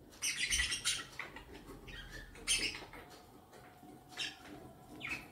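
Soft irregular clicks and scrapes as peeled lime segments are tipped from a ceramic plate into a glass blender jug, the plate knocking against the jug. They cluster in the first second, with a few single ones after.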